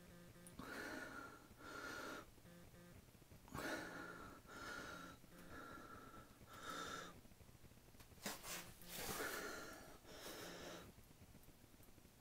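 Reticulated python breathing in wheezy, hissing rasps while swallowing a goat, about ten short irregular breaths with a faint whistle in them.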